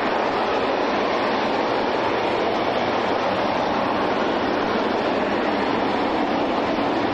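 RS-25 liquid-hydrogen/liquid-oxygen rocket engine firing at steady thrust during a static test: a loud, continuous, even rushing noise with no change in level.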